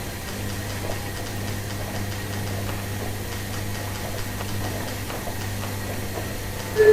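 Washing machine running with a steady low hum and faint ticking. The first note of an electronic chime sounds right at the very end.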